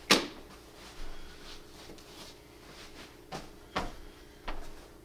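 Knocks and clicks from a folding camping cot and its strapped-on padded mat as the mat is pressed down and adjusted, the sharpest knock right at the start and several softer ones after, with faint rustling of the mat fabric in between.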